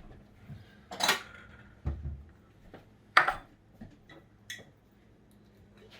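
Dishes and metal utensils clinking and clattering as food is handled: a few sharp clinks, the loudest about a second in and just after three seconds in, with lighter taps and knocks between.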